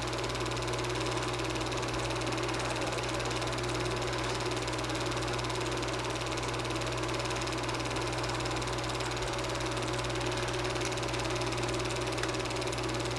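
Super 8 film projector running, a steady mechanical whirr with a constant low hum.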